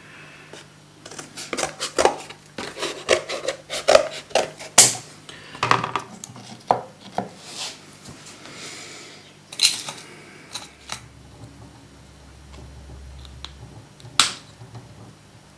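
Hands working on a freshly stuffed and sewn perch mount on a bench: irregular small taps, knocks and rubbing, busiest in the first half, a few more around the middle and one sharper knock near the end.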